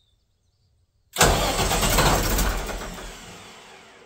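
Katolight 110 kVA generator set's engine cranked by its electric starter: the noise comes on suddenly and loud about a second in, holds briefly, then fades as the engine spins down without staying running.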